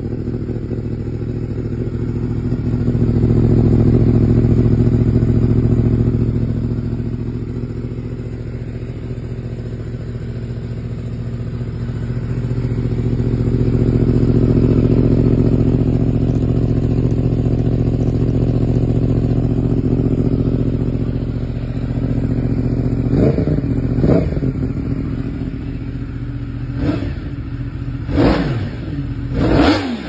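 Yamaha YZF-R1 crossplane inline-four through a Graves aftermarket exhaust, revving in place in neutral. It runs steadily with two slower swells of held revs, then gives several sharp throttle blips in the last seven seconds.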